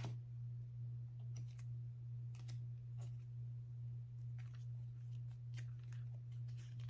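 Faint, scattered light clicks and taps of tarot cards being handled on a table, over a steady low hum.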